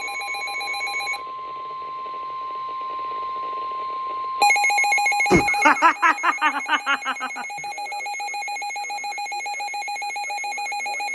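A steady, single-pitched weather-radio warning alarm tone that cuts off about four and a half seconds in. A rapid pulsing electronic ringing plays over it during the first second, comes back as the tone stops and carries on to the end. There is a thump and a brief wavering sound about five to seven seconds in.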